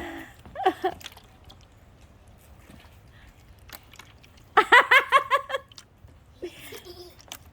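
A child's voice: short vocal sounds at the start, then about four and a half seconds in a loud, high-pitched squeal of about a second, with a weaker one near the end.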